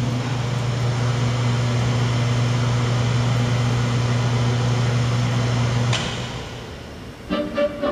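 Steady electrical hum of powered-up observatory equipment that cuts off with a click about six seconds in. Music starts near the end.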